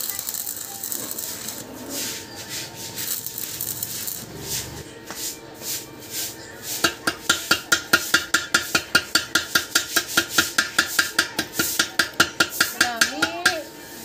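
Fast, even metallic tapping, about five strikes a second with a ringing tone, as a hand tool strikes the steel door hinge of an Isuzu Crosswind. It starts about seven seconds in and stops just before the end. Before that come lighter, irregular clinks of metal.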